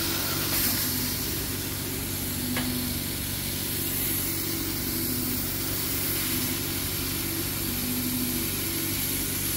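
CO2 laser cutting machine running through a cutting pass on 18 mm plywood: a steady machine hum and hiss, with short low tones coming and going as the cutting head moves, and one faint tick about two and a half seconds in.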